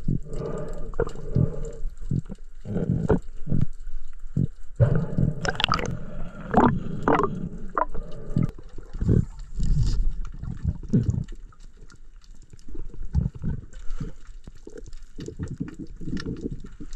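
Muffled underwater sound picked up through an action camera's housing: irregular gurgles, knocks and rumbles of water moving around the camera and the diver's hands and gear.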